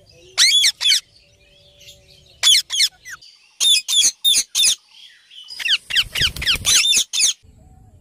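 Indian ringneck parakeets giving short, high calls in quick groups of two to four. Near the end comes a longer run of rapid calls over a low rumble.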